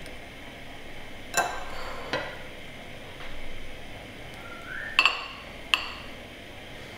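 Metal spoon clinking against ceramic bowls while avocado is spooned onto pancakes: about five sharp clinks with a short ring, two of them close together a little after the middle, plus a faint scrape.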